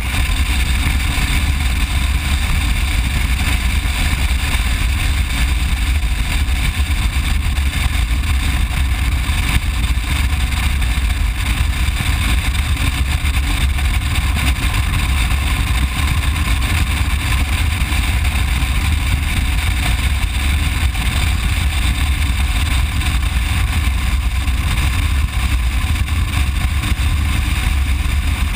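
Steady rush of riding wind on the microphone of a motorcycle cruising at a constant road speed, a deep rumble with the engine and road noise mixed under it and no change in pace.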